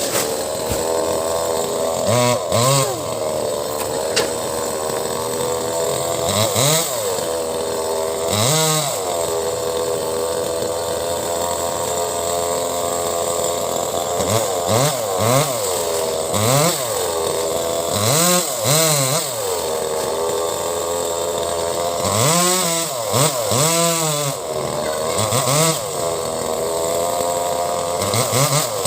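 Two-stroke chainsaw running at high revs and cutting into mango wood, its engine pitch sagging under load and rising again over and over.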